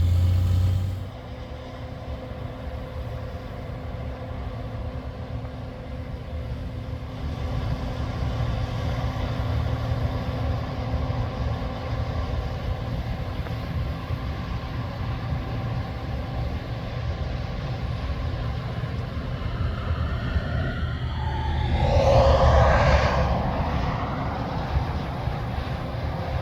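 Farm machinery engine running steadily. A louder machine passes close about 21 seconds in, its pitch rising and then falling as it goes by.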